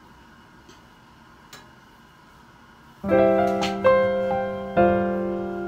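Quiet room tone with a faint click, then piano music comes in about three seconds in, playing slow sustained chords.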